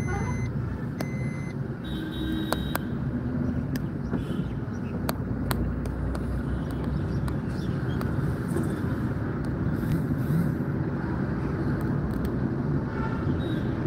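Car driving along a road, with steady engine and tyre rumble heard from inside the cabin. A brief high beep comes about two seconds in, and a few faint clicks fall in the first few seconds.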